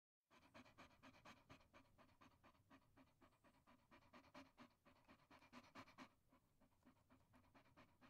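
A dog panting quickly and rhythmically, about four to five quick breaths a second. It eases off slightly after about six seconds.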